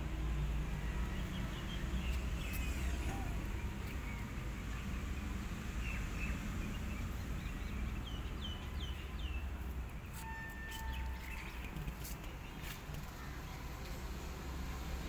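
Outdoor background of a steady low rumble, with small birds chirping now and then; a quick run of falling chirps comes about eight seconds in.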